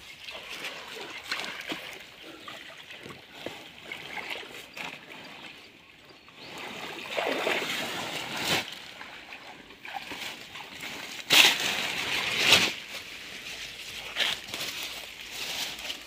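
Pond water splashing and sloshing as a cloth net loaded with mud and weeds is hauled out of the water, water pouring and dripping off it. Two louder surges of splashing come about halfway through and again about three quarters of the way in.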